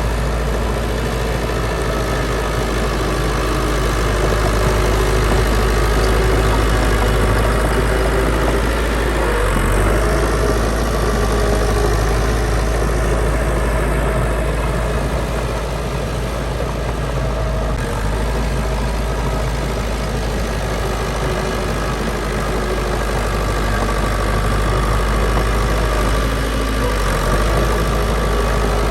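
Diesel engine of heavy earthmoving machinery running steadily at a low, even pace, with a constant deep hum and no sharp knocks or revving.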